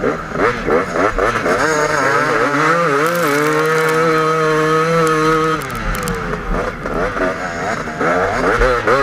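KTM 250 EXC two-stroke enduro motorcycle engine heard close up, revving up and down with the throttle in soft sand. It holds a steady high rev for about two seconds mid-way, then drops off about six seconds in before picking up again.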